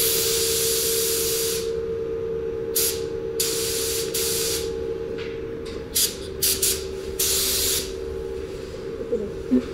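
Paint spray gun spraying clear coat: a continuous hiss of air that stops about one and a half seconds in, then a series of short bursts as the trigger is pulled on and off. A steady hum runs underneath.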